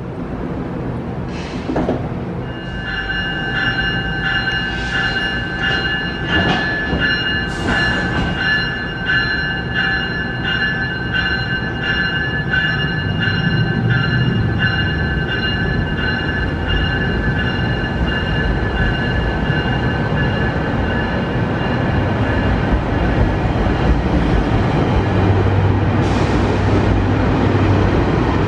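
GO Transit bilevel commuter train pulling out and rolling past: a steady rumble, a high-pitched steady ringing tone for most of the run with repeated clicks over it, and a low hum near the end.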